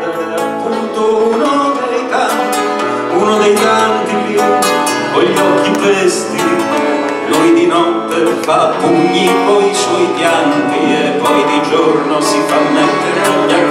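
Live acoustic band playing: strummed and plucked guitars with double bass and accordion.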